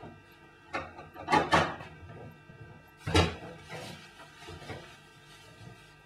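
Knocks and clatters of a kitchen unit's door and its contents being handled, the loudest a cluster about a second and a half in and a single bang about three seconds in, over a faint steady hum.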